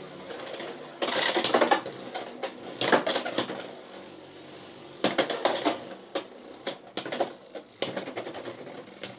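Two Beyblade X spinning tops battling in a plastic stadium: a Dran Sword attack combo against a defence combo on a Gear Needle bit. Quick runs of clattering hits come about one, three and five seconds in, with a steady spinning whir between them and scattered single clacks later.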